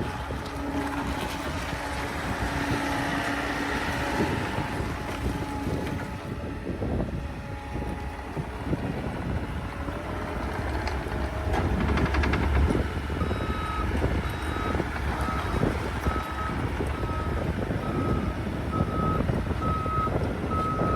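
Bobcat T66 track loader's diesel engine running, getting louder around the middle. From about two-thirds of the way in, its backup alarm beeps evenly, about one and a half beeps a second, as the machine reverses.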